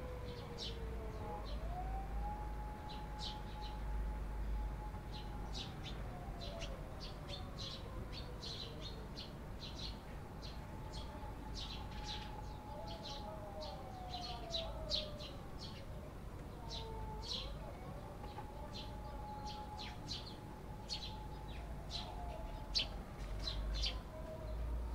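Eurasian tree sparrows chirping: a run of short, quick chirps throughout. Behind them a siren wails, rising slowly, holding, then falling, and rising again about two-thirds of the way through.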